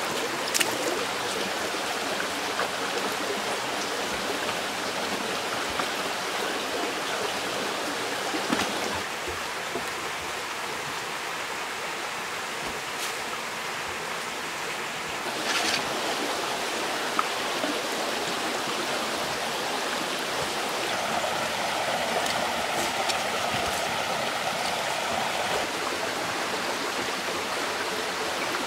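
Steady rushing of a forest stream, with a few brief knocks and rustles now and then from someone moving about and handling gear.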